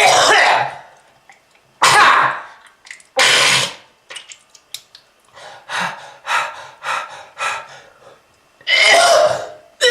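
A person coughing hard in repeated fits, the harsh cough of a smoker. Three loud coughs come in the first four seconds, then a run of shorter, quieter coughs, then another loud cough near the end.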